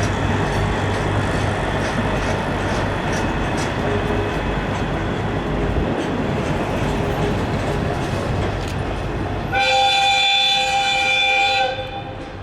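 Freight train hauled by a diesel locomotive rolling past with the Shiki 801 Schnabel car, a steady engine rumble with scattered wheel clicks over the rails. About nine and a half seconds in, the locomotive's horn sounds one long blast of about two seconds, the loudest sound here, then stops.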